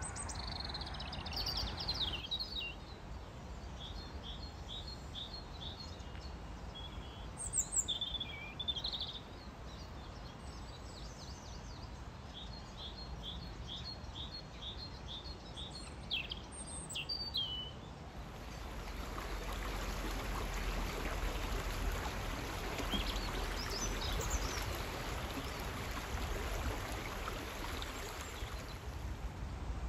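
Wild birds singing and calling, with repeated short chirping trills. About eighteen seconds in, a shallow stream running over rocks takes over as a steady rushing.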